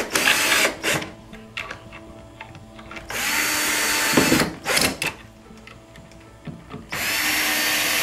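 Power drill driving screws through a plastic cabinet bracket into the wooden panel, in three runs of about a second each with short blips in between.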